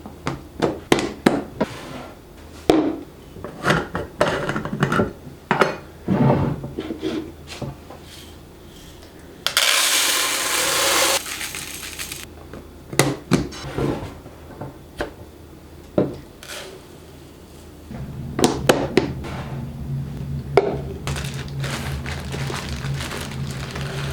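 Kitchen storage containers and lids being handled and set down in a cupboard: a run of sharp clicks and knocks, a rushing burst about ten seconds in, and a steady low hum that starts near the end.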